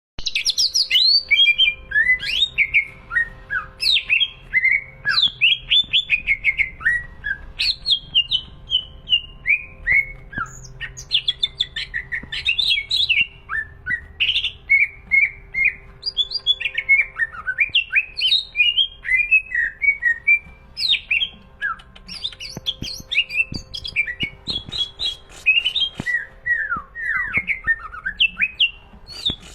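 Cucak ijo (green leafbird) singing nonstop, with hardly a pause: a long, varied run of quick, sharply falling whistled notes and chattering phrases.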